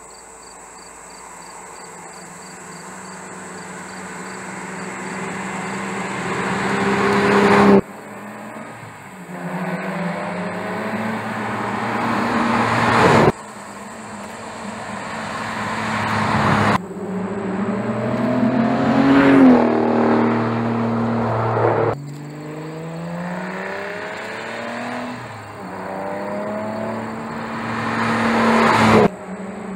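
Aston Martin DBS V12 engine accelerating toward and past, growing louder and rising in pitch through the gears. It comes in several short clips, each cut off suddenly.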